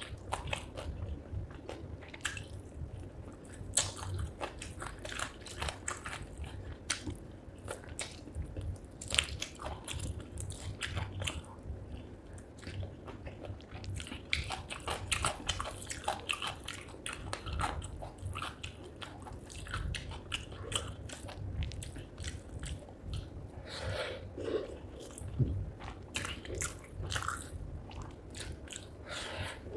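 Close-miked mukbang eating of chicken feet curry with rice: wet chewing and biting with frequent small crunches and clicks.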